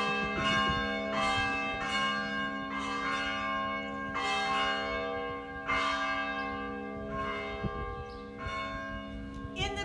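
Church bell ringing, struck about once a second, each stroke's hum ringing on under the next.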